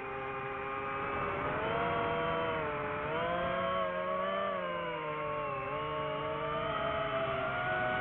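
DJI FPV drone's motors and propellers whining in flight, the pitch of the whine rising and falling every second or two as the throttle changes.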